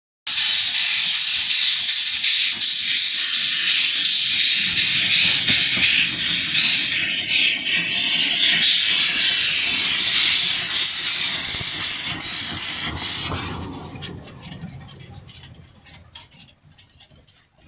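Narrow-gauge steam locomotive blowing off steam in a loud, steady hiss that dies away over a few seconds near the end.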